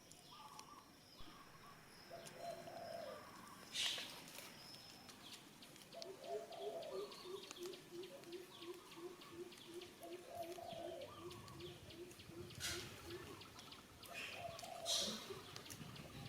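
Birds calling in the background: a steady run of low hooting notes, about three a second, from about six to thirteen seconds in, with other short calls and a few sharp clicks around them.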